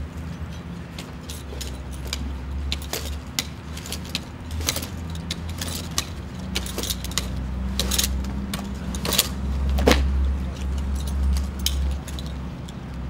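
Lineman's metal climbing gear (belt rings, snaps and pole climbers) jangling and clinking in quick, irregular clicks, with one louder clank about ten seconds in, over a steady low hum.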